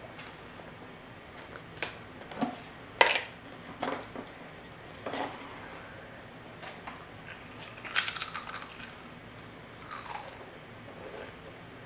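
A hand rummaging in a Pringles can, with scattered clicks and one sharp crack about three seconds in. Then a Pringles crisp is bitten and chewed, with a cluster of crunches about eight seconds in.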